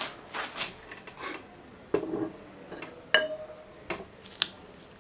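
A metal pipe being fitted down over a motorcycle fork tube as a makeshift seal driver, clinking and knocking against the fork tube and the old oil seal half a dozen times. One knock about three seconds in rings briefly.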